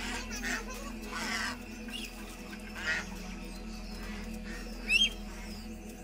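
Domestic ducks and geese calling: a handful of short quacks and honks, the loudest a sharp call about five seconds in, over a steady low hum.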